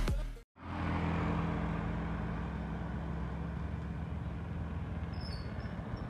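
The tail of an electronic intro track cuts off, then a small motorcycle engine runs steadily. A few faint high chirps come near the end.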